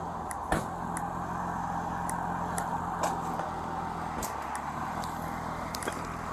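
A motor vehicle's engine running steadily at idle, a low even hum, with a few faint clicks.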